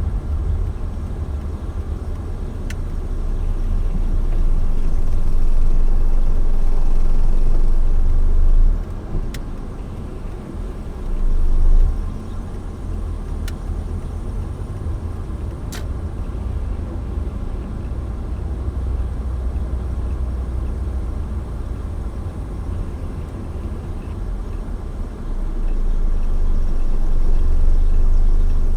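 Road noise of a moving car: a steady low rumble of engine and tyres that swells louder for a few seconds twice, with a few faint ticks.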